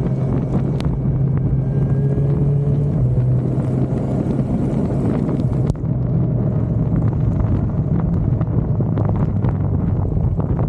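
Suzuki motorcycle engine running at road speed, with wind buffeting the microphone. The engine note steps down about three seconds in, and the sound briefly drops near the middle.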